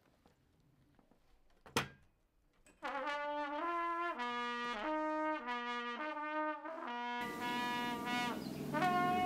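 Music: a short sharp click under two seconds in, then a trumpet-led brass melody starts about three seconds in, moving in clear stepped notes. A hissing wash, like cymbals, joins under the melody about seven seconds in.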